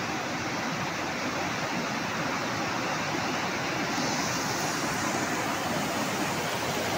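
Flash-flood torrent of muddy water rushing steadily down a hillside stream channel.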